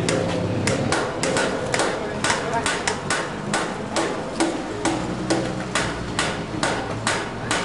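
Hammer blows struck one after another at a steady pace, about three a second.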